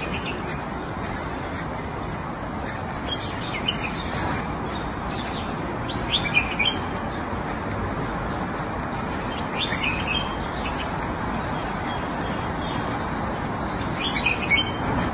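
Small birds chirping in short bursts of high calls every few seconds, over a steady background hiss.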